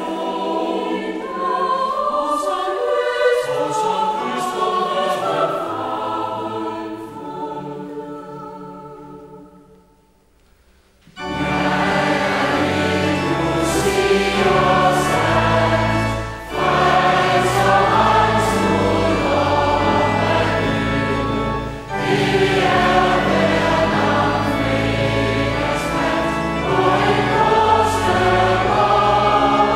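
Choral music: one sung piece fades out about ten seconds in, and after a second of near silence another choral piece begins, with deep low notes underneath.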